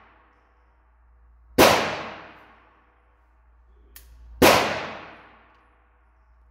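Two shots from a Taurus Model 80 .38 Special revolver, a little under three seconds apart, each followed by about a second of echo off the concrete walls of an indoor range. A faint sharp click comes just before the second shot.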